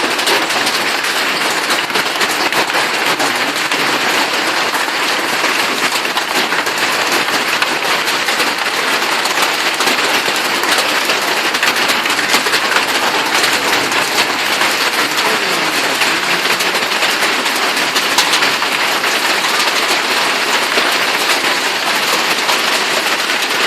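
Hailstones falling in a dense, steady patter without rain, a constant crackle of many small ice impacts.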